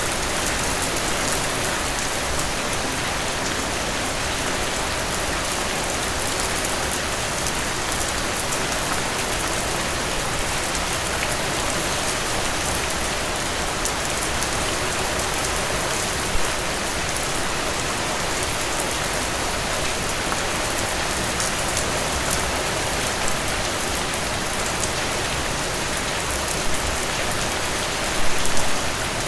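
Steady rainfall hissing on a surface, with fine drop ticks throughout and a few louder drips or splashes near the end.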